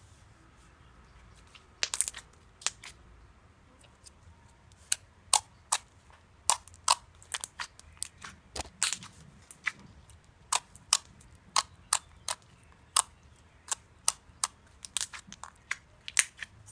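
Slime being pressed and worked by hand, giving a string of sharp, irregular pops and crackles, about two a second, starting about two seconds in.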